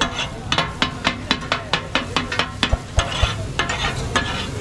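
Katakat cooking: metal spatulas chopping and striking the flat iron griddle in an uneven clatter of about four strikes a second, with goat brain and kidney sizzling in butter masala beneath. This is the clatter the dish is named for.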